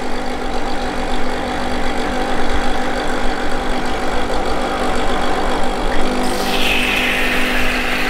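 Petrus PE3320 espresso machine's pump buzzing steadily on its first run; about six seconds in a hiss joins it. The selector is left on the frothing setting, so water and steam go to the steam wand instead of the group head.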